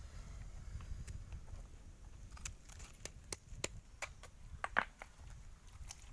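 Grilled sea urchins being cracked open by hand and with a stone: irregular sharp clicks and cracks of brittle shell, several a second at times, the loudest about three-quarters of the way through, over a steady low rumble.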